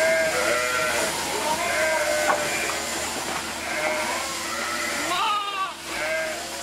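A flock of merino sheep bleating, many calls overlapping continuously, some higher-pitched like lambs' calls among deeper ones.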